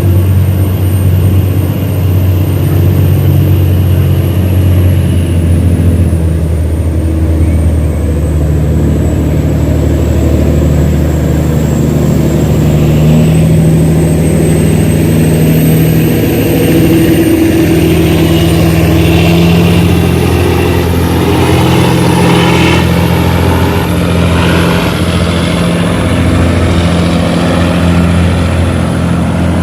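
Tugboat diesel engine running steadily under load while towing a train of heavy barges, with a faint high whine that drifts slowly up and down above it.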